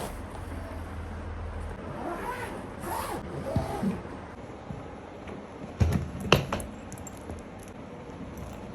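Background hum and rustling handling noise, with two sharp clicks about six seconds in.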